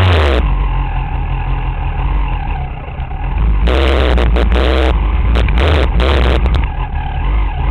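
Dirt bike engine running close under the microphone as it rides a rough trail, its throttle easing off about three seconds in and opening up again, with rough noisy bursts through the second half.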